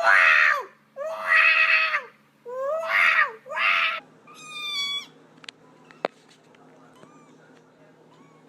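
A cat yowling loudly in four drawn-out cries, each bending in pitch, then a shorter, higher meow about four seconds in, followed by a few light clicks.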